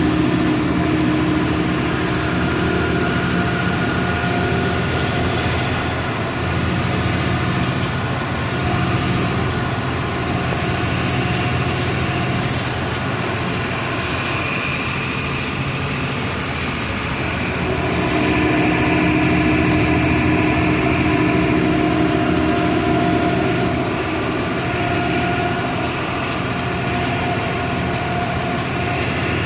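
Volksbus 17-230 EOD bus's diesel engine running with a steady note, louder for a stretch at the start and again about two-thirds of the way through.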